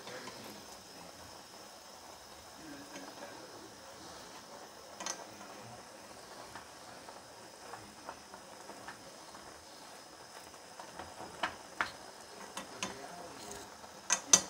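Noodles boiling in broth in a saucepan, a steady faint bubbling, while wooden chopsticks stir them and tap against the pot. The taps come singly at first and grow more frequent toward the end, where a quick cluster is the loudest sound.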